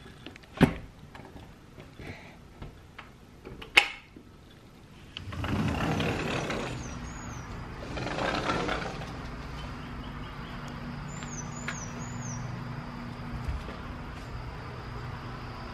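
Outdoor traffic noise: two swells of rushing noise as vehicles go by, then a steady low engine hum. Two sharp clicks come in the first few seconds, and short runs of high chirps sound twice.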